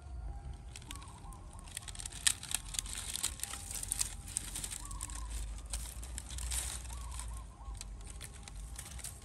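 Dry sticks and twigs crackling and snapping as they are handled and kindled into a small fire, with short bird calls repeating every few seconds.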